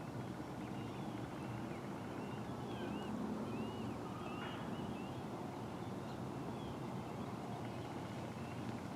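Birds chirping, with many short quick calls, over a steady low background rumble.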